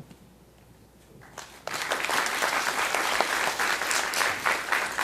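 Audience applause breaking out about a second and a half in after a quiet moment, dense clapping that carries on steadily.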